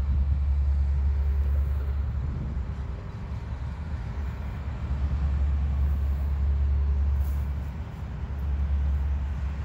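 Traffic on a nearby road: a low, uneven rumble that swells and eases every few seconds.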